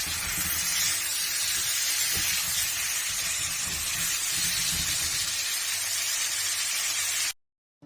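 Chicken pieces and vegetables frying in hot oil in a shallow pan: a steady sizzling hiss with light, irregular crackling. It cuts off abruptly near the end.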